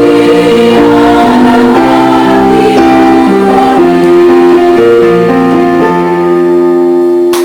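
Electronic keyboard playing slow held chords, the closing bars of a choir song's accompaniment, with the notes changing in steps.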